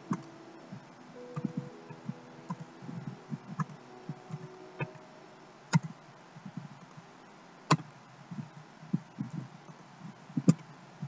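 Computer keyboard keys being typed, irregular clicks and soft taps with a few sharper strokes.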